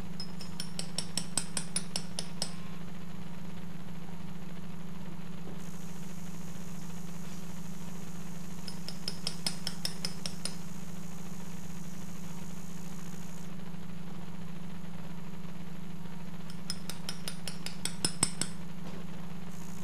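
Mallet tapping a bone awl to punch small holes in the bone so marrow can seep out for healing: three bursts of quick, clinking metallic taps. A steady low hum runs underneath.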